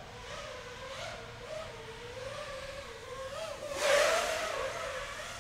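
Emax Buzz FPV quadcopter's motors and propellers whining, the pitch wavering up and down with the throttle. About four seconds in, the whine swells into a loud rushing buzz, then eases off.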